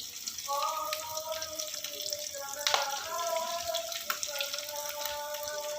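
Water running from a kitchen tap into a sink, with a few clicks. A steady pitched tone is heard over it, changing pitch in steps.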